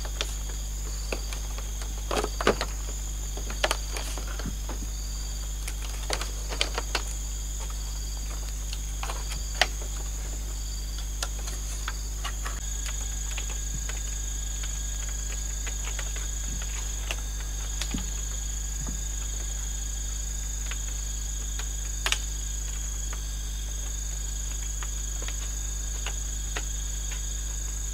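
Steady high-pitched insect trilling throughout, with scattered light clicks and knocks of split bamboo being handled and lashed into a floor, most of them in the first half and one sharp knock near the end.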